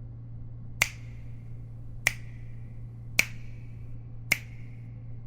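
Finger snaps keeping time in a pop song's intro, four sharp snaps about a second apart over a steady low hum.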